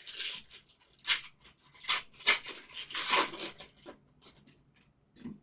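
Trading cards being handled: a run of short rustling, sliding and scraping sounds, densest through the first four seconds, then a few lighter touches.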